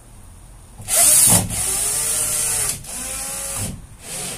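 Cordless drill running in two bursts as it drives long screws into the skylight frame. The first, longer run starts about a second in and is loudest at its start; a shorter, quieter one follows near three seconds, with the motor's pitch shifting as the screw bites.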